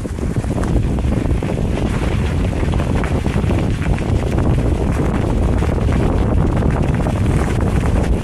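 Wind buffeting the microphone: a loud, steady low rumble that sets in suddenly.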